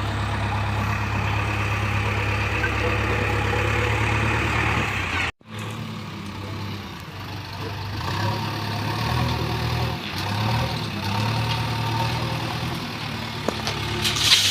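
Heavy diesel machinery engine running steadily, then, after an abrupt cut about five seconds in, with its speed rising and falling as it works. A rushing noise starts near the end.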